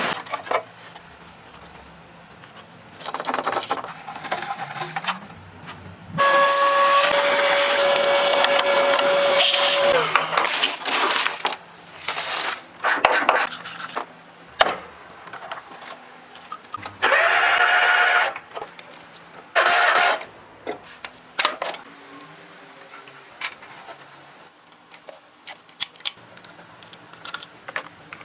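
Engine-rebuild shop work: several bursts of power-tool noise lasting a few seconds each, one with a steady whine and one whose pitch rises as it starts, with short clicks and knocks of tools in between.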